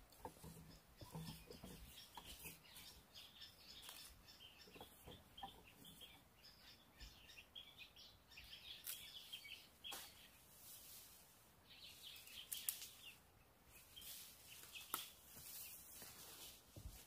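Faint, repeated chirping of small birds, with a few scattered sharp clicks or knocks.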